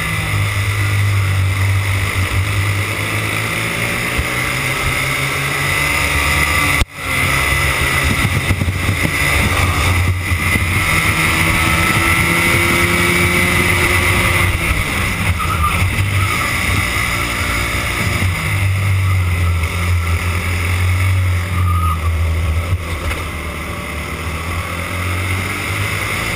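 Racing kart engine recorded onboard, running hard and easing off through the corners, its pitch rising and falling with the throttle. The sound briefly cuts out about seven seconds in.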